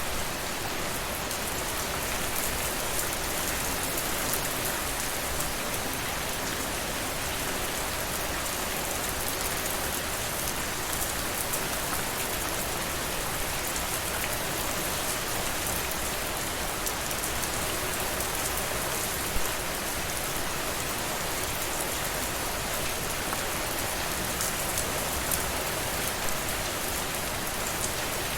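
Steady rainfall, with many fine drops pattering on a surface and an occasional louder single drop.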